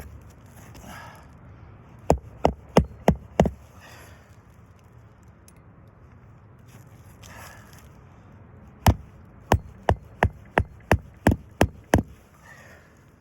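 Hammer driving new roofing nails into an asphalt shingle: a run of five sharp strikes about two seconds in, then a run of about nine strikes, some three a second, near the end.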